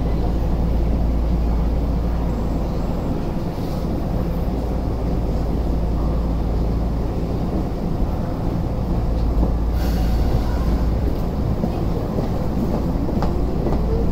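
Tokyu 8500 series commuter train standing at the platform with a steady low hum and rumble, and a short hiss near ten seconds in. About twelve and a half seconds in it starts to pull away, and its traction motors set up a rising whine.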